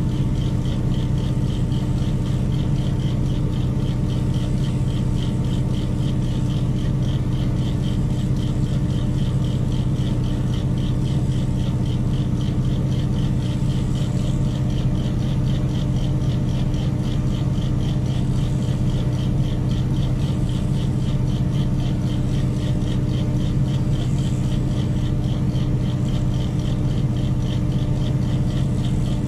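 Mobile crane's diesel engine running steadily during a heavy lift, a constant low drone with a fast, even pulse over it.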